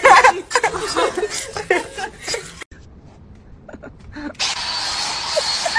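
Rapid, squeaky, laughter-like chattering for about the first two and a half seconds. After a short, nearly quiet gap with a few light ticks, an angle grinder starts running near the end with a steady high whine over a grinding hiss.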